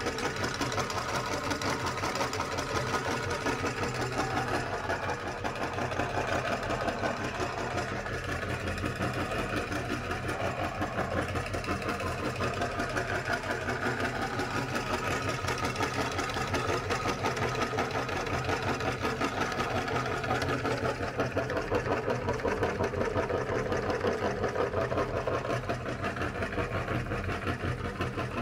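Electric meat grinder running steadily as it grinds ice cream: a constant motor hum with a rapid, even mechanical chatter.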